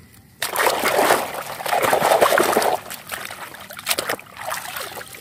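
Muddy water sloshing and splashing in a basin as a hand swishes toys through it to wash them, strongest in the first half, then quieter and more broken.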